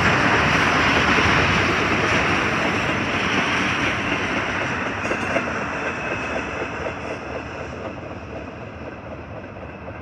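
Freight train of autorack cars rolling past on the rails, a steady wheel-on-rail rumble that fades as the cars move off into the distance.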